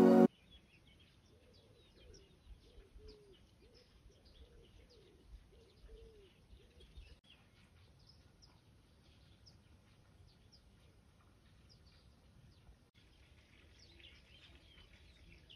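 Faint birdsong in the open countryside: a run of low cooing notes from a dove-like bird in the first half, with small birds chirping throughout.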